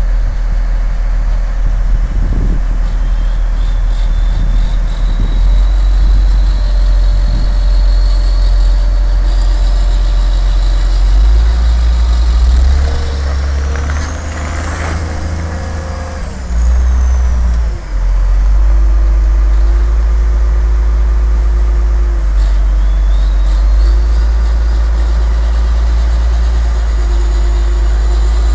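Heavy diesel engines of a wheel loader and a Tatra dump truck running loud with a deep steady rumble, the loader working against the stuck truck. A high whine climbs through the first half and falls away about sixteen seconds in, while the engine note swells between about twelve and seventeen seconds, dips briefly near eighteen, then settles.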